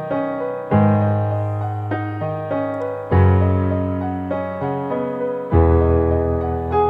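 Solo piano playing slow sustained chords, a new chord with a deep bass note struck about every two and a half seconds and left to fade, with lighter single notes in between.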